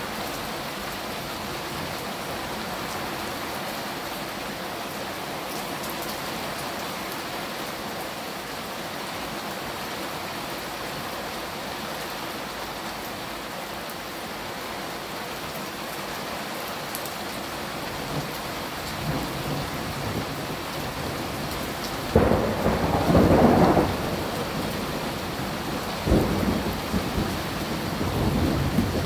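Steady rain falling, then about three-quarters of the way through a sudden loud crackling rumble of close thunder lasting a couple of seconds, followed a few seconds later by a second, shorter thunder rumble and smaller ones near the end.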